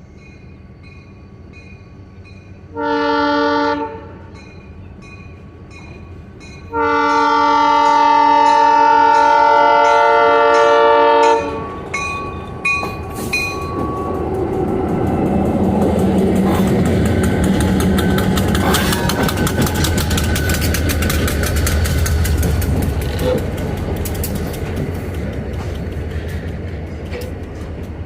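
Passenger train approaching and passing: a bell dings steadily throughout while the locomotive's air horn sounds a short chord blast about three seconds in and a long blast from about seven to eleven seconds. Then the train rolls by with a heavy engine rumble and wheels clicking over the rail joints, loudest in the middle and fading slightly near the end.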